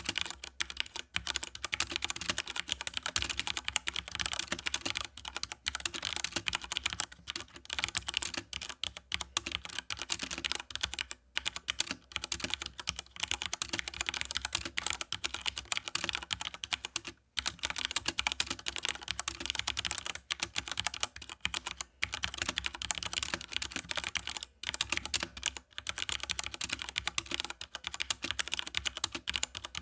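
Fast continuous typing on a Cooler Master Rapid I mechanical keyboard with Cherry MX Red linear switches and ABS keycaps, a dense run of key clacks with a few brief pauses.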